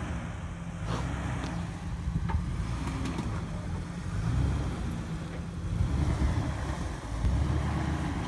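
Jeep Wrangler engine running at low revs while rock-crawling up a steep rock step, the low drone swelling and easing several times as the throttle is fed in and backed off.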